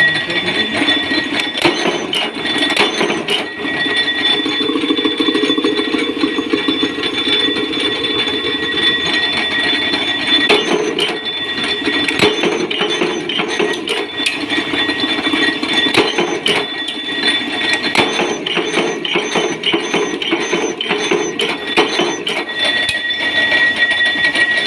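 A power press running an automatic one-stroke punch-and-hole washer die, stamping washers from steel strip in a fast, continuous metallic clatter. A steady high whine runs alongside the clatter and drops out briefly a few times.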